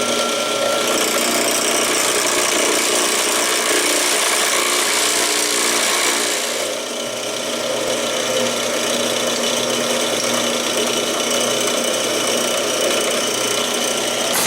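Electric power tool fitted with a chuck running continuously, its motor hum under a rough abrasive noise as it works a wooden knife handle; the load eases briefly about six to seven seconds in.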